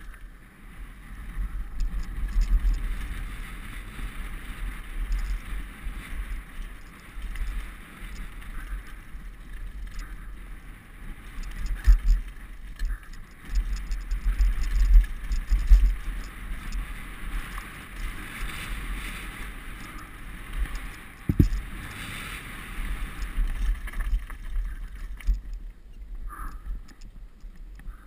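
Wind buffeting the microphone of a helmet-mounted camera as a downhill mountain bike runs fast over a dirt and gravel trail, with tyres crunching over the ground and the bike rattling. A sharp knock comes about three quarters of the way through.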